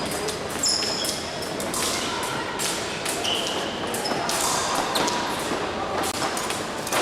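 Épée fencing in a large hall: frequent sharp clicks and knocks from blades and footwork, with a few brief high metallic rings from blade contacts, over faint background voices.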